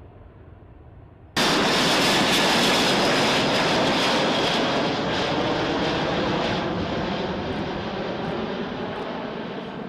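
Aircraft engine noise: a loud, steady rush with a high whine over it, cutting in suddenly about a second in and slowly fading.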